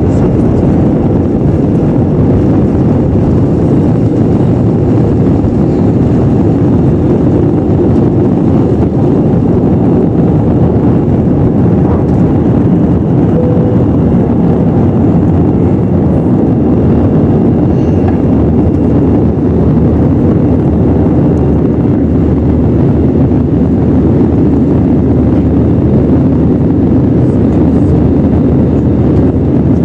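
Airbus A320 jet engines at takeoff power, heard inside the cabin over the wing: a loud, steady rumble of engines and rushing air as the airliner lifts off and climbs.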